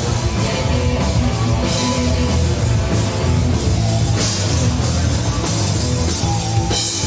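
Heavy metal band playing: electric guitars, bass guitar and drum kit, loud and steady.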